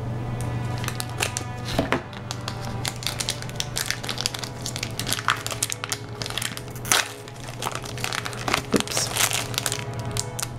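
Foil blind-bag packet crinkling and crackling in the hands as it is torn open and its contents pulled out, in many quick irregular crackles, over steady background music.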